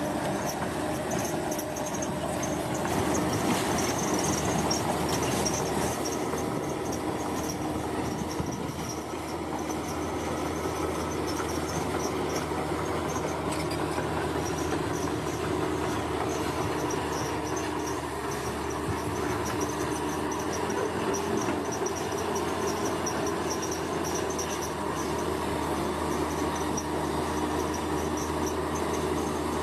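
Heavy construction machinery running steadily, a continuous engine drone with held tones that swells a little a few seconds in. Insects chirp high above it in a pulsing, even rhythm.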